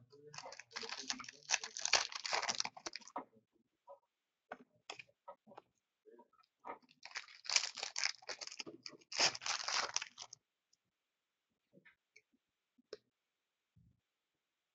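Hockey card packs being torn open and their wrappers crinkled: three stretches of tearing and crinkling, the first about a second in and the others around seven and nine seconds in, with light clicks and rustles of the cards being handled in between.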